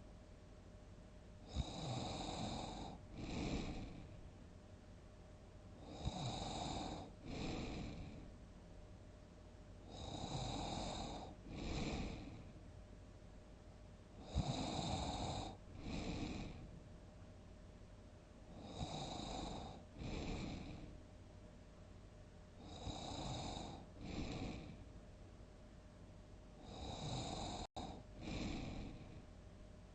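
A person snoring loudly in a steady rhythm: each breath brings a longer snore and then a shorter one, about every four seconds, seven times.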